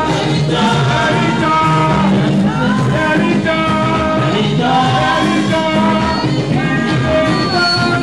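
Live church choir singing into microphones over an amplified band of electronic keyboard and electric guitar, playing without a break.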